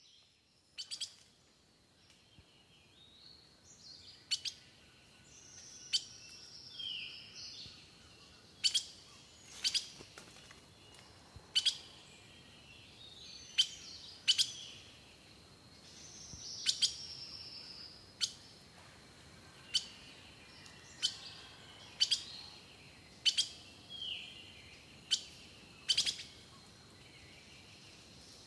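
Birds singing and calling at fairly low level: sharp, irregularly spaced chip notes about every one to two seconds, mixed with a few falling whistled phrases.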